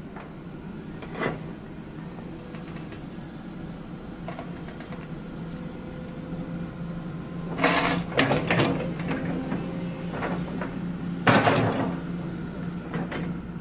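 Kobelco SK125SR-3 hydraulic excavator's diesel engine running steadily while the boom and arm are worked, with a short click about a second in and two loud bursts of hydraulic and mechanical noise, one about eight seconds in and one near the end.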